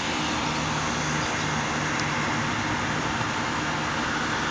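Steady background hum and hiss from a running machine, such as a fan or ventilation, with a faint low drone and one faint tick about two seconds in.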